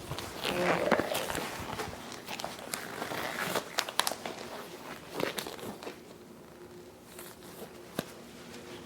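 Handling noise from people moving about: rustling with scattered clicks and taps, busiest in the first few seconds and sparser after, with one sharp click near the end.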